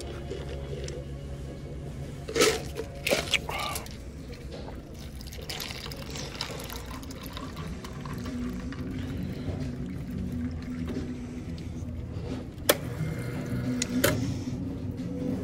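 Iced tea pouring from a BUNN iced tea dispenser's spigot into a paper cup, then a soda fountain dispensing into the cup near the end. A few sharp clicks and knocks come from handling the spigot, lever and cup.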